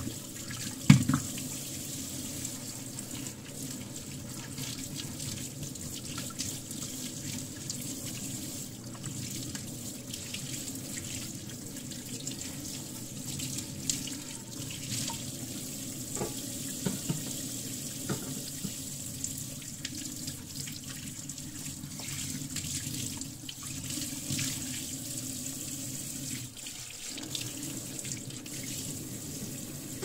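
Steady running water, with a sharp knock about a second in and a few light clicks later.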